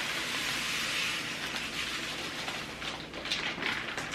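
Granulated cane sugar poured in a steady stream from its bag into a sugar container, a continuous grainy hiss that turns rougher and more broken near the end as the pour trails off.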